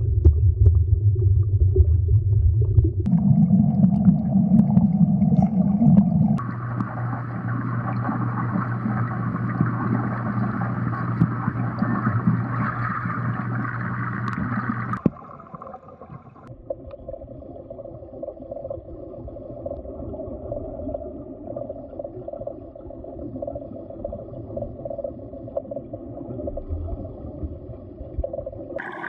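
Layered, sustained droning tones that shift abruptly to new pitches several times, growing quieter about halfway through, like an ambient underwater soundscape.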